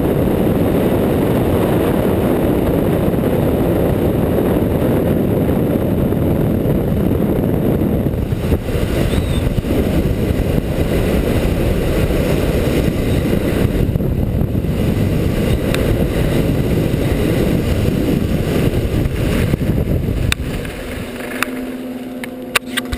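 Wind buffeting a skier's camera microphone while skiing downhill: a loud, steady low rumble. It eases off about twenty seconds in as the skier slows at the bottom, followed by a few sharp clicks and scrapes.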